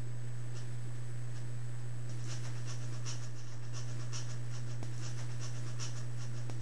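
Steady low electrical-type hum, with faint soft scratchy ticks about four a second starting about two seconds in.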